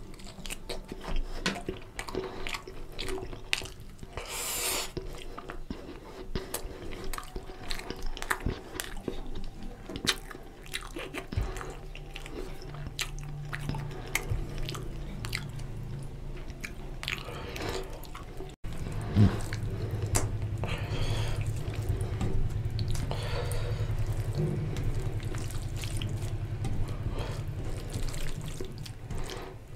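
Close-miked wet eating sounds: chewing and lip smacking, and fingers squishing rice into oily mutton curry, a string of small sharp clicks and squelches. About two-thirds through, after a brief dropout, a steady low hum sits under them.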